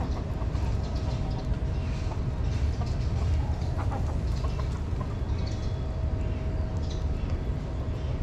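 A kitten chewing wet cat food and dry kibble, with scattered small clicks, over a steady low rumble.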